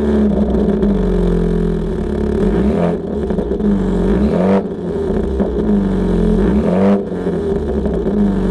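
Exhaust note of a 2020 Mini John Cooper Works Clubman's 2.0-litre turbocharged four-cylinder engine through a Remus Race exhaust, running just after start-up. The engine note rises and falls a few times.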